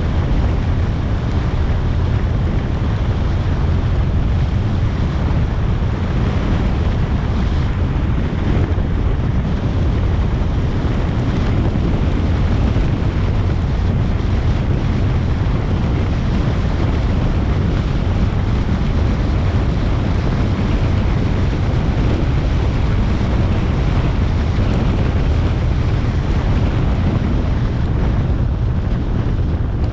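Steady wind noise buffeting an action camera's microphone on a moving motorcycle, with the motorcycle's running and road noise underneath.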